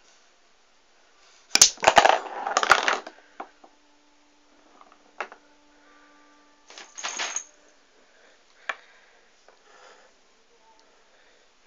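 Pool balls knocking and clacking together: a dense, loud rattle of hits about two seconds in, then scattered single knocks and another short rattle about seven seconds in.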